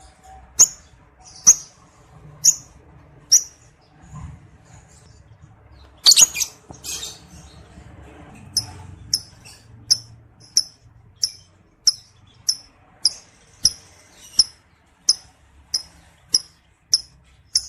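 Lovebird calling in short, sharp, high-pitched chirps, about one a second at first. About six seconds in comes a longer, harsher call, after which the chirps come quicker and evenly spaced, about three every two seconds.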